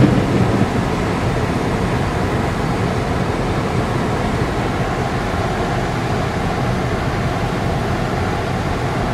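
Car driving on a snowy road: steady engine and tyre noise.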